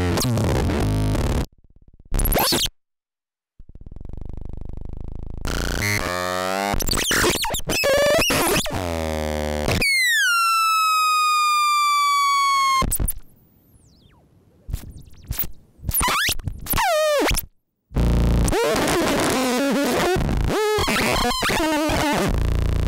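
Electro Lobotomy Particle Smasher + sound generator putting out harsh electronic noise: chopped, glitching sound that cuts in and out with short silences, with sweeping pitch glides. Near the middle a held whistling tone drops sharply, sinks slowly for about three seconds and cuts off; wobbling, warbling tones come in near the end.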